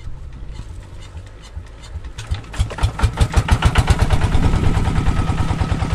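Kubota NS80 single-cylinder diesel engine on an irrigation water pump catching and starting about two seconds in, then running with a rapid, regular firing beat.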